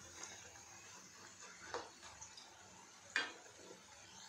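Faint sizzle of nimki dough pieces deep-frying in hot oil in a kadai, with a slotted metal spoon clicking against the pan twice, the louder about three seconds in.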